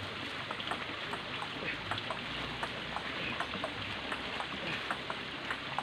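Table tennis rally: light, irregular clicks of the ball off bats and table over a steady hiss.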